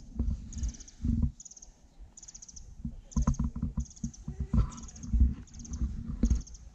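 Footsteps on a forest trail, a run of irregular low thuds, under a short, high, rapid chirping that repeats about every three quarters of a second.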